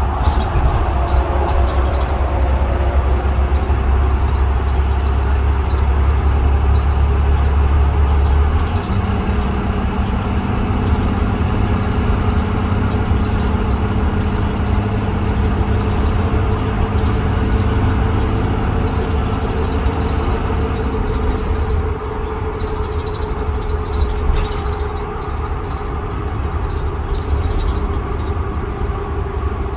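Blue Bird Vision school bus engine and drivetrain running while the bus is driven, heard from inside. A heavy low rumble gives way about nine seconds in to a steadier, higher engine note, and the sound eases off a little about twenty-two seconds in.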